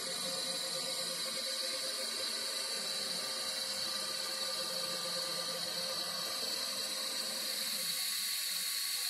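DC TIG welding arc with argon shielding at about 125 amps, a steady hiss with a faint hum that fades near the end, as tool steel filler rod is added to build up a hardfacing bead on mild steel.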